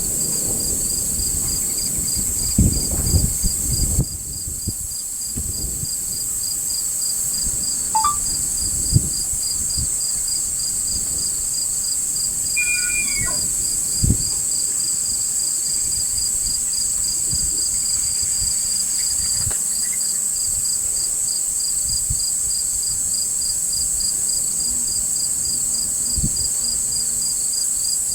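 Insect chorus, crickets or katydids, with a fast, even pulsing trill over a steady high hiss. About 13 seconds in, a short high whistle falls in pitch, a distant bull elk bugling. A few low thumps come in the first half.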